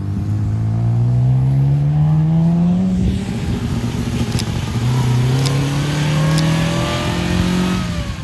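Sports-car engines accelerating away. First a Mazda RX-7, its note rising steadily. Then, about three seconds in, an MGA roadster's four-cylinder engine pulls away, its note climbing and then dropping near the end.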